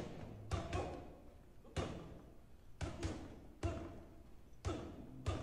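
Gloved punches landing on a spring-mounted reflex ball, about seven sharp thuds at uneven intervals of roughly a second, with a quick double hit near the start.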